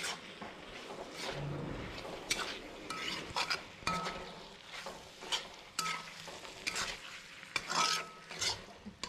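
Steel spatula stirring and scraping beef roast around a black iron pan, with the meat frying and sizzling, at the final dry-frying stage of the roast. The scraping comes in many short strokes, with a few brief metallic rings off the pan.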